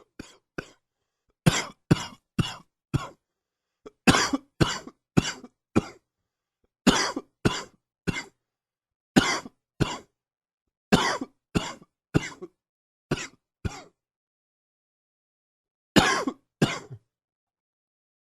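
A man coughing with a chest cold, in about eight fits of two to four hacking coughs each, with short pauses between fits and a longer pause before the last one.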